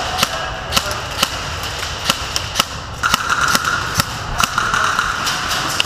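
Airsoft guns firing scattered single shots and short strings, sharp cracks coming irregularly, a few a second at their busiest.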